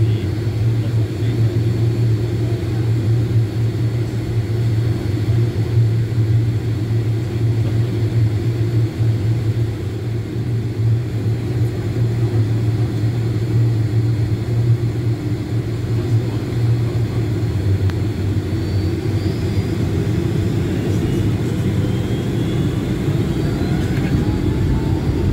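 Steady low hum of a Boeing 757-300's Rolls-Royce RB211 engines at idle, heard inside the passenger cabin over the wing.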